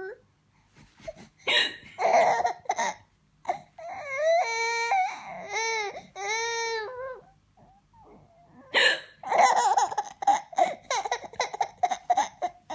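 A woman hiccuping and a baby laughing at it: long high-pitched squeals of laughter in the middle, then a quick run of laughing near the end.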